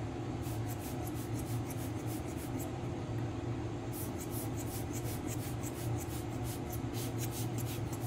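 A plastic squeeze bottle of alcohol solution spits short hissy squirts of air and liquid in quick runs of about four or five a second, two runs with a pause between. A steady low hum sits underneath.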